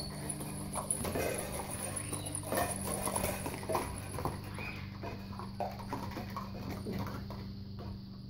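Hanging plastic cups and a plastic funnel on a PVC-pipe dog play frame knocking and clattering irregularly as a Labrador puppy tugs and chews at them, over a steady low hum.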